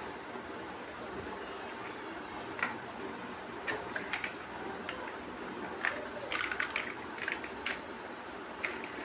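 Plastic building bricks being handled and snapped together: scattered sharp clicks, coming thicker for a moment about two thirds of the way in, over a steady background hiss.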